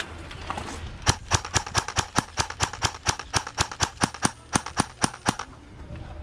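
Airsoft gun firing a rapid string of sharp shots, about six a second, starting about a second in and stopping shortly before the end.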